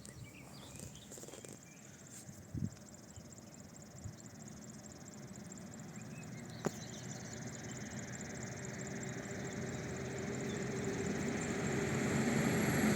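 Insects trilling in a fast, even, high-pitched pulse, with a sharp click about halfway through and a low rumble that grows steadily louder toward the end.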